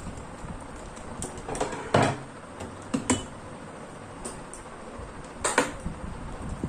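Scattered clicks and knocks of handling at a repair bench, about half a dozen short strikes, the loudest about two seconds in and again about five and a half seconds in.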